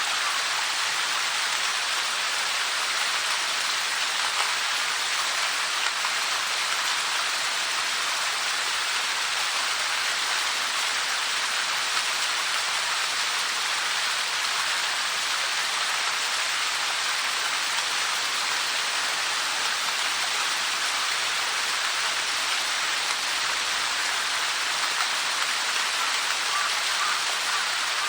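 A waterfall with a 30 m drop: falling water splashing in a steady, even rush with no change in level.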